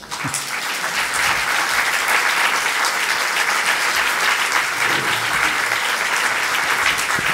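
Audience applauding at the close of a talk: dense, steady clapping that swells over the first second and then holds at an even level.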